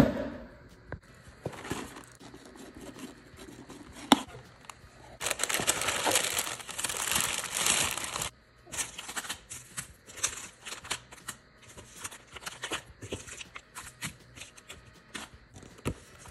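A cardboard kit box being opened and unpacked: a knock at the start, tissue paper rustling for about three seconds in the middle, then crinkling and small clicks as plastic-wrapped packets and cards are handled.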